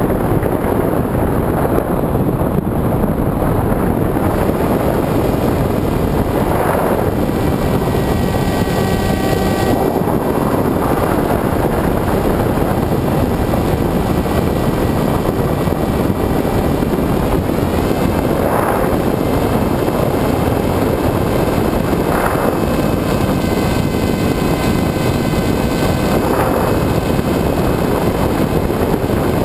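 Wind rushing over a Multiplex EasyStar RC glider's onboard camera in flight, with the whine of its electric pusher motor coming in about a quarter of the way in, fading, then returning in the second half and rising in pitch as it spools up.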